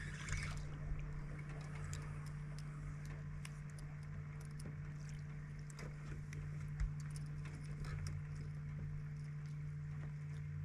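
A fishing boat's motor hums steadily and low while the boat sits on the water, with scattered light clicks and water lapping at the hull and one soft knock about two-thirds of the way through.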